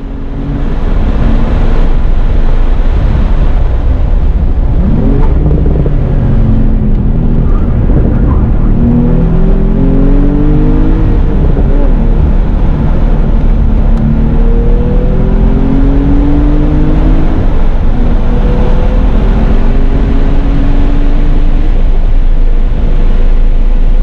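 2017 Porsche 911 GTS's twin-turbo flat-six running hard at track speed, with tyre and road noise. The car slows for a corner, then accelerates hard out of it, the engine pitch climbing again and again through successive gears.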